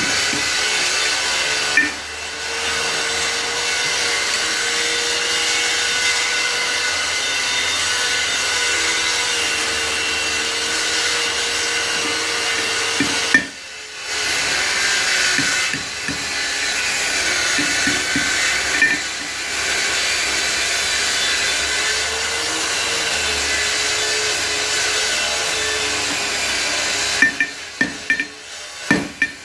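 Electric grinder running against steel, its motor tone sagging and recovering as it is pressed on and eased off, with a few short breaks. Sharp hammer strikes on metal start near the end.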